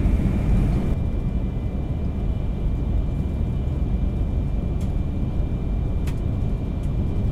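Cabin running noise of a Yamagata Shinkansen Tsubasa train: a steady low rumble with a faint steady high whine over it, and a light click about six seconds in.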